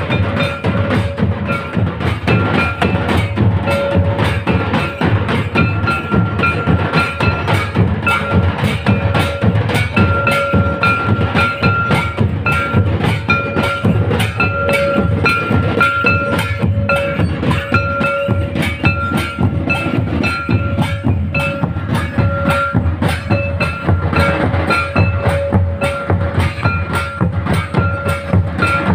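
Tribal drum ensemble playing a fast, steady beat on large double-headed barrel drums and bowl-shaped kettle drums, with a held high tone that breaks off and returns over the drumming.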